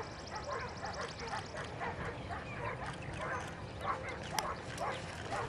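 Faint, rapid animal calls repeating about three or four times a second, with a couple of sharp clicks.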